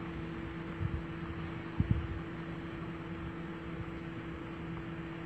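Wind buffeting a phone microphone in low rumbling gusts, about one and two seconds in, over a steady hiss and a constant low hum.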